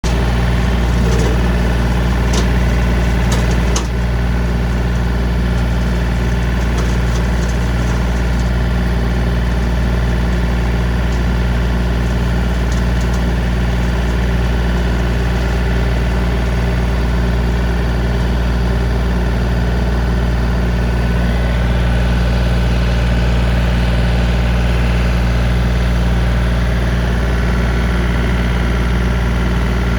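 John Deere 3025D compact tractor's diesel engine running steadily at constant speed while brush hogging with a rotary cutter in first gear low range. A few sharp ticks about two to four seconds in.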